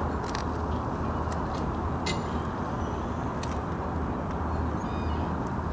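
Steady low rumble of harbour background noise, with a few short, high bird chirps scattered over it.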